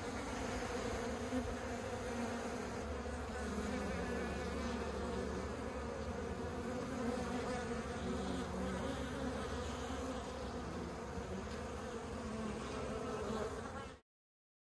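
Honey bees buzzing: a steady hum of many bees that cuts off suddenly near the end.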